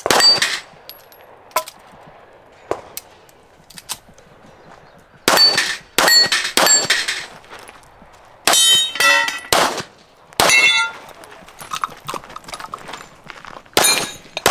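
Gunshots at steel targets, each hit answered by the ringing clang of the struck steel plate. Shots come irregularly, some in quick succession, and one plate rings on for about a second near the middle.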